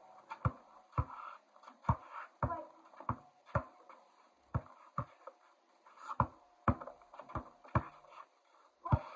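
Basketball dribbled on a concrete patio: a run of bounces about two a second, with a couple of short pauses.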